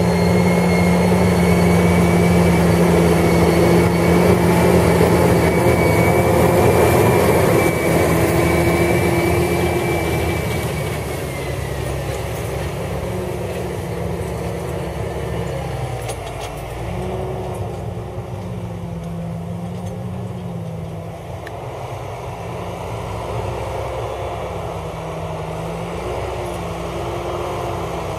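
John Deere 8285R tractor's six-cylinder diesel engine working under load, pulling a Lemken Rubin 9 disc harrow through the soil. It is loudest for the first ten seconds, with a high steady whine that drops away about eleven seconds in, then quieter, with the engine note rising and falling a little as the load changes.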